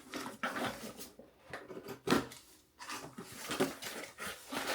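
Packaging being handled and opened by hand: irregular rustling and light knocks, with one sharper knock about two seconds in.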